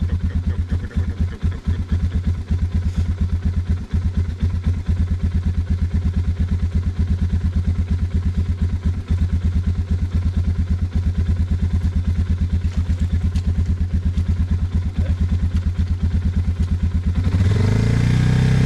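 Suzuki DR650's single-cylinder four-stroke engine idling with a steady putter, then revved about a second before the end, spinning the bogged rear wheel to break the mud's suction.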